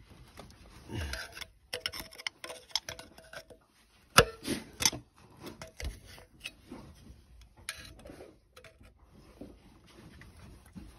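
Irregular light clicks and knocks of a metal tool against engine parts, with one sharper knock about four seconds in; no engine running.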